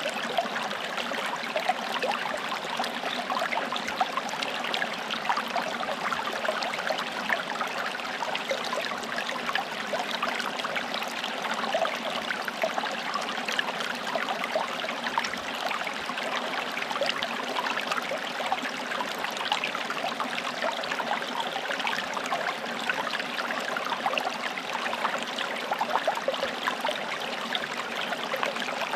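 Forest stream flowing, a steady rush of water with constant small trickles and splashes.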